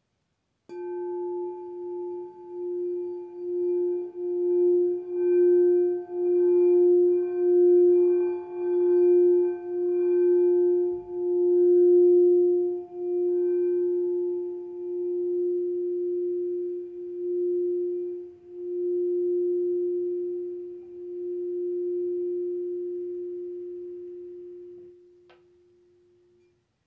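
A singing bowl sounded with a wooden mallet, holding one long, clear, ringing tone with several overtones. The tone swells and fades in slow pulses roughly once a second, then smooths out and slowly dies away near the end.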